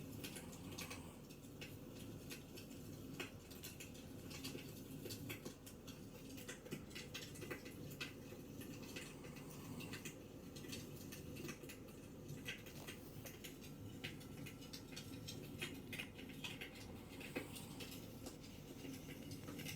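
Fire crackling, with many small irregular snaps and pops over a steady low hum.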